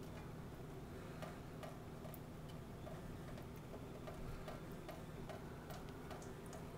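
Cats lapping water at a running kitchen faucet in a stainless steel sink: soft, regular wet ticks at about three a second, with a few sharper clicks and a faint steady hiss underneath.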